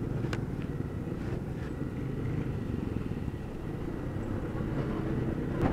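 Honda PCX 160 scooter's single-cylinder engine running as it rides slowly in traffic, a steady low rumble with a faint thin tone above it. Two faint clicks come early on.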